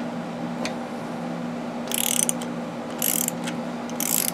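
Socket ratchet clicking in three short runs about a second apart, starting about two seconds in, as it loosens the rear shock's mounting bolt.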